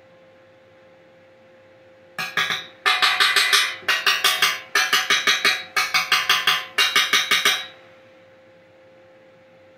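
Rapid hammer blows on steel, about six strikes a second in six short bursts, each blow ringing metallically.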